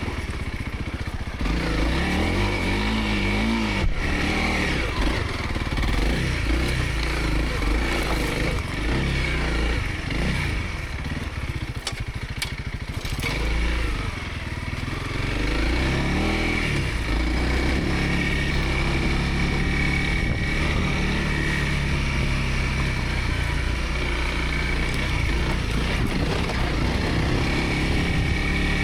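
Dual-sport motorcycle engine running while riding a dirt trail, revs rising and falling with the throttle, with a couple of sharp knocks.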